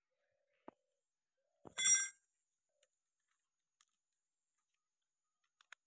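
A single bright metallic clink with a short ring about two seconds in: a steel screwdriver striking the tractor alternator's metal body while the carbon brush and regulator unit is screwed into place. A few faint small clicks of handling come before and after.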